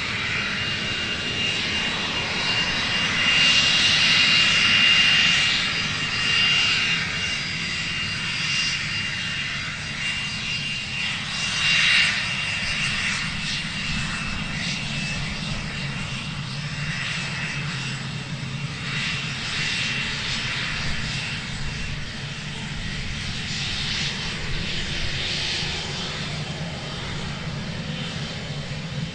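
Cessna Citation 560 business jet's twin turbofan engines whining at taxi power: a steady high whine over a low rumble, swelling louder around four to six seconds in and briefly again near twelve seconds.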